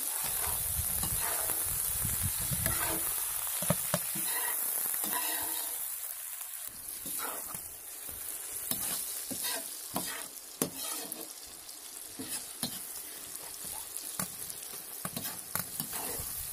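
Plov ingredients frying in oil in a kazan over a wood fire: a steady high sizzle with scattered sharp clicks, and a low rumble during the first few seconds.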